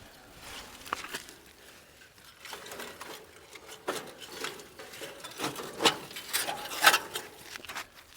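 Irregular scraping, crunching and knocking of burnt car scrap and copper wiring being pulled and handled, with the loudest knocks about a second before the end.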